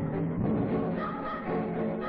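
Background film music: instruments playing held notes that change several times.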